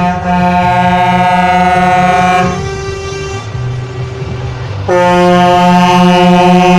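Multi-tone air horn on a Volvo VN truck sounding a chord in two long blasts: one at the start lasting about two and a half seconds, and a second beginning about five seconds in.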